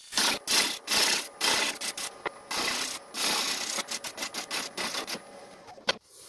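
Bowl gouge cutting into a spinning fruitwood bowl on a lathe, hollowing out the centre mass. It makes a rapid series of short cuts with brief gaps between them, which stop about six seconds in.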